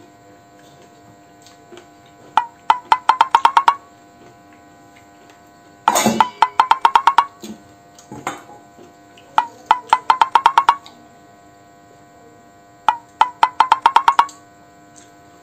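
Background music: a repeating phrase of about ten quick, wood-block-like clicks climbing in pitch, heard four times about three and a half seconds apart.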